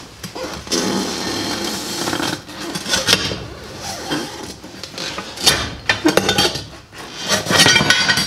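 Steel tire spoons prying a garden tractor tire's bead off its steel wheel rim by hand. Long scrapes of metal against rubber and rim, several sharp metal clanks, and a ringing metallic clatter near the end.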